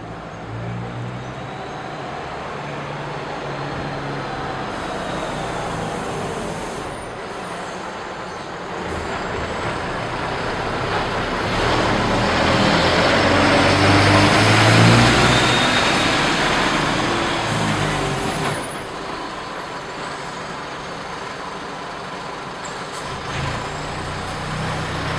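Road traffic passing close by: engine and tyre noise swells to its loudest about halfway through, then falls away. Near the end a city bus's engine comes up as it drives past.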